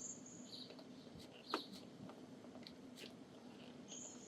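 Faint bird chirps, short and high, a few times, with a couple of light sharp clicks about one and a half and three seconds in, over quiet background.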